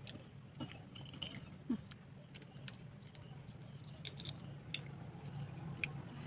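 Quiet eating sounds: scattered soft clicks and smacks of chewing and of food and utensils being handled, over a faint steady low hum.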